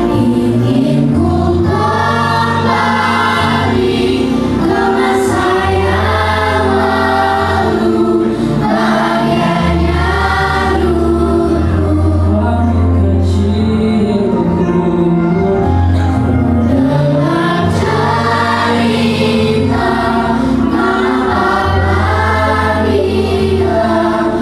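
Children's school choir singing together in several parts, over an accompaniment of long, low held notes that change every few seconds.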